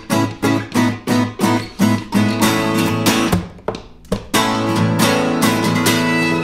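Acoustic guitars strummed in a steady rhythm, about three strums a second. The strumming breaks off briefly after about three seconds, then the music comes back in fuller, with a violin playing long bowed notes over the guitars.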